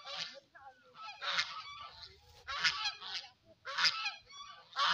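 Domestic geese honking off-screen: a series of about six harsh, nasal honks roughly once a second, with fainter calls between them.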